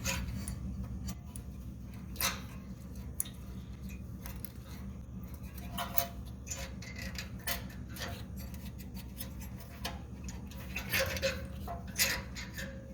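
Irregular clicks, taps and short metallic clinks of hand tools working on a small generator, over a steady low hum.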